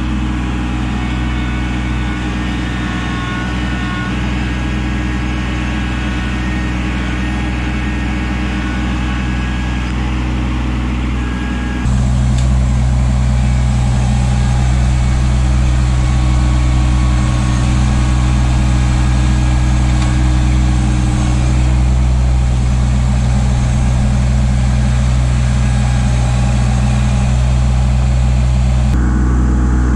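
Kubota LX2610 compact tractor's diesel engine running steadily, a constant low hum, louder and closer from about twelve seconds in.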